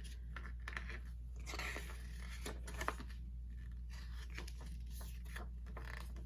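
Paper and cardboard album packaging handled, with scattered light rustles, crinkles and small clicks over a steady low hum.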